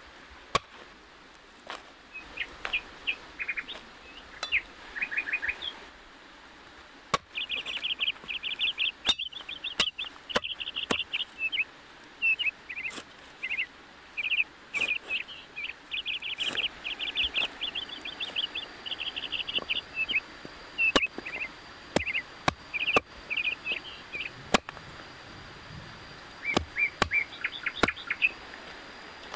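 A cleaver knocking on a wooden chopping board in separate strikes every second or so as lemongrass and ginger are cut. Birds chirp throughout in quick trills of short notes.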